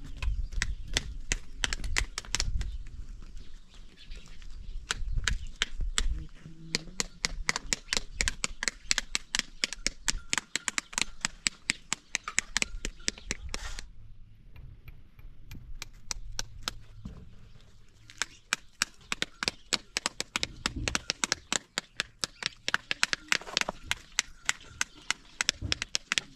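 Rapid, evenly spaced sharp taps, several a second, running on with a short break partway through.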